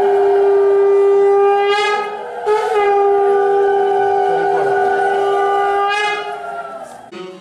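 Conch shell (shankha) blown in two long blasts of one steady note, with a short break about two seconds in. The second blast fades near the end and then cuts off.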